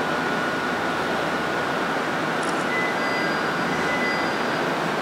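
Steady hiss of a stationary Ichibata 2100 series electric railcar's onboard equipment running at the platform, with a thin steady whine and a brief tick about halfway through.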